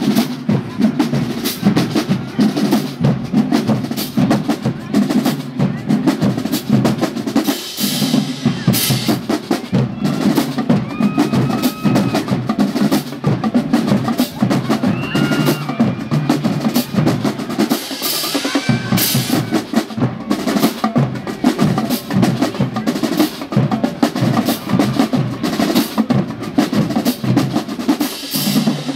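Marching drumline playing a funk cadence: snare drums, bass drums and hand cymbals in a dense, driving rhythm, with cymbal crashes now and then.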